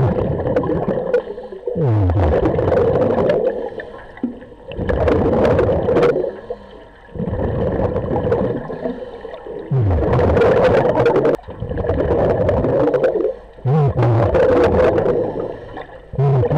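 A diver breathing through a regulator underwater, in repeated cycles every few seconds: each breath's hiss and gurgle is followed by a rush of exhaled bubbles, with a short low falling tone at its start.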